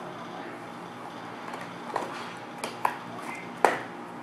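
A few sharp clicks and taps from handling a toy blaster's packaging, the last one the loudest.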